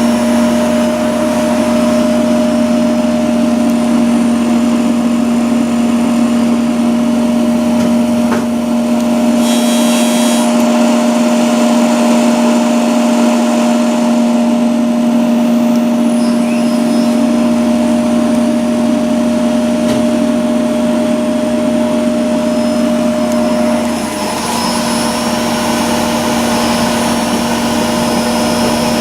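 Electric motor running steadily on a test bench, powered by a Yaskawa Varispeed 626VM3 drive under test: a constant hum with a steady whine above it. The sound drops a little about 24 seconds in.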